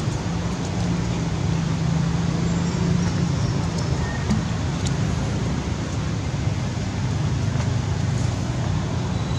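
Steady background rumble of motor traffic, with a constant low hum under an even hiss.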